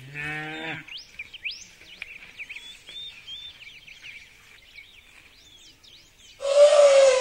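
A cow moos briefly at the start, and then birds chirp and sing thinly in the meadow. About a second before the end comes a loud animal call, about a second long, that falls slightly in pitch.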